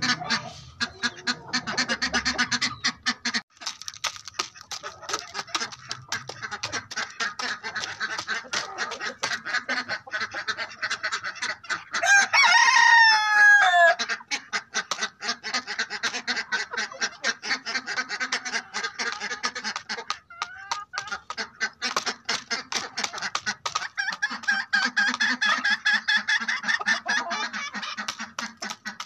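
Aseel chickens clucking and calling continuously in a flock, many short rapid calls. About twelve seconds in, a rooster crows once, loudly, for about two seconds, the pitch falling at the end.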